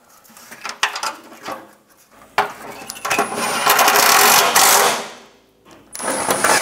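Steel skid plate knocking and clanking as it is hooked into place, then a cordless impact gun running in two bursts, a long one of about three seconds and a short one near the end, as it drives the skid plate's mounting bolts.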